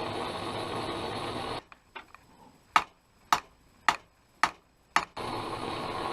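Five hammer blows on metal, about two a second, as a seized bolt is struck to drive it out. A steady rushing hiss stops about a second and a half in and comes back near the end.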